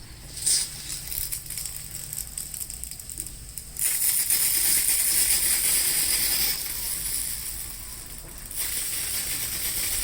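Lawn sprinkler heads spraying water: a hiss with rapid ratcheting clicks, louder from about four seconds in until about eight and a half seconds.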